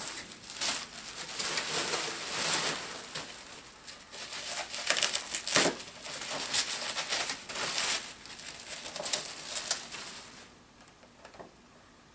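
Packing material being crinkled and rustled by hand in irregular bursts as an item is unwrapped, stopping about ten seconds in, with a couple of small clicks near the end.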